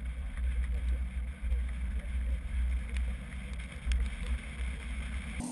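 Wind rush and road noise on a roof-mounted action camera of a moving vehicle: a steady heavy low rumble that cuts off abruptly near the end.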